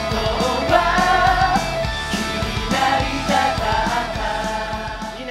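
A group of male voices singing an upbeat rock-style musical-theatre number over a band with drums and electric guitar. The music breaks off near the end.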